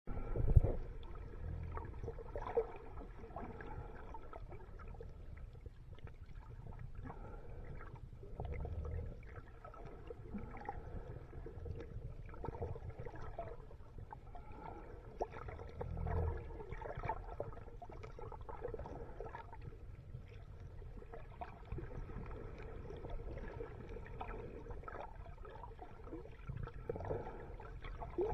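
Underwater ambience picked up by a camera held under the sea: a continuous low rumble of moving water with scattered clicks and crackles and a faint steady hum. A sharp knock comes right at the start, the loudest sound, and a few short louder surges of water come later on.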